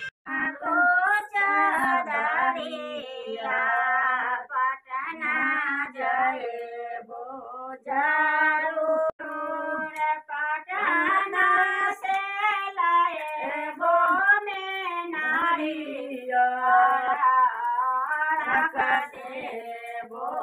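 A woman singing a Chhath folk song unaccompanied, in long, wavering, held phrases separated by short breaths.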